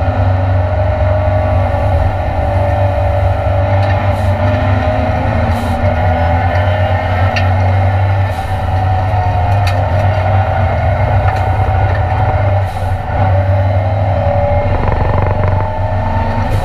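Ford Escort Mk2's Cosworth race engine heard from inside the stripped cabin, running hard under load on track, its pitch rising and falling gently with a brief drop in loudness about three-quarters of the way through.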